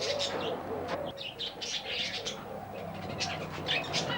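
Many small caged birds chirping and twittering together in an aviary, rapid short high calls overlapping one another throughout.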